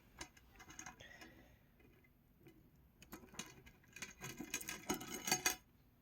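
Small metallic clicks and rattles of a gold-tone metal watch bracelet being handled, a few scattered clicks at first and then a dense run of clinking about halfway in that stops just before the end.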